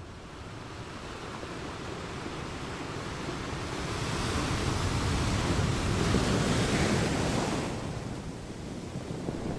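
Ocean waves: the rush of one wave builds slowly, peaks about six to seven seconds in, then falls away, with the next beginning to rise near the end.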